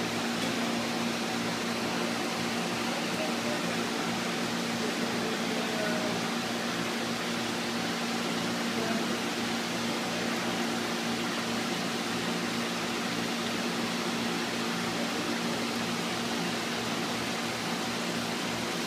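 Steady hum and hiss of running machinery: a constant low tone under an even noise that does not change.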